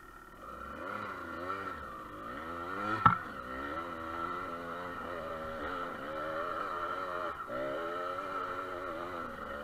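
Dirt bike engine revving up and down again and again as the throttle is opened and closed, with a brief drop in engine sound near the middle. A single sharp knock comes about three seconds in.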